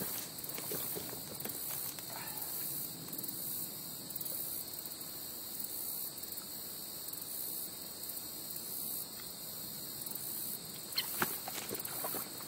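Steady, high insect chorus. Faint rustling runs under it, and a few sharp crackles come near the end, like footsteps through dry weeds.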